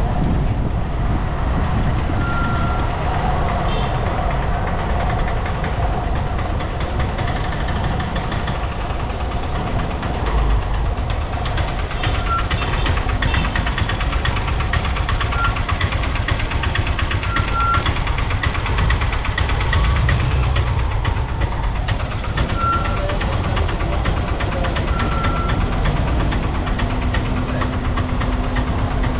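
Vehicle driving in road traffic: a steady rumble of engine and road noise. Short high tones sound now and then, and a steady low hum joins near the end.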